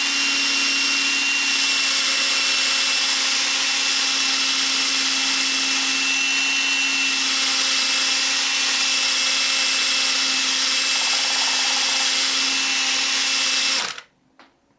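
Electric drill running steadily at constant speed, driving a polishing pad with compound over a plastic solar panel, with a steady high whine over its motor hum. It stops abruptly about a second before the end.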